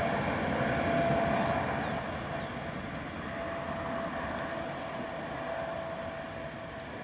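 Boeing 777-200F's GE90 jet engines running on the runway: a steady distant rumble with a thin steady whine through it, easing slightly after about two seconds.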